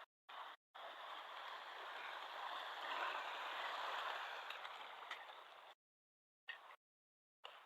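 Mountain stream water flowing. It swells to its loudest in the middle, fades, and cuts off suddenly, followed by two short snatches of the same sound.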